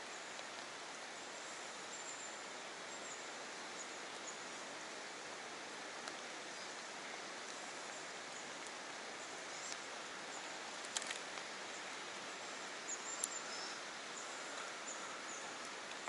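Steady outdoor background hiss, with a few faint high bird-like chirps and a couple of small sharp clicks about two-thirds of the way through.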